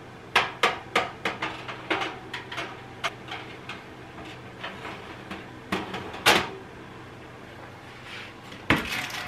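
Metal wire oven rack clattering and clinking against the oven's rails as it is slid in and adjusted: a quick run of sharp metallic clicks early on, a few more knocks later and another clatter near the end, over a steady low hum.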